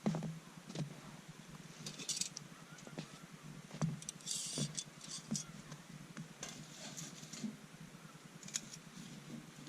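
Wood campfire crackling, with irregular sharp pops and two brief hisses about two and four and a half seconds in.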